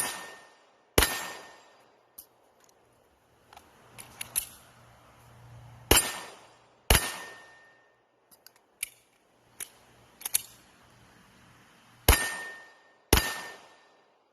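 Rock Island VRBP-100 12-gauge semi-automatic bullpup shotgun firing three pairs of quick shots, the two in each pair about a second apart, each shot ringing out for most of a second. Fainter clicks and knocks come between the pairs.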